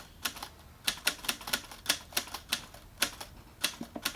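Keys being typed: quick, irregular clicks, several strokes a second.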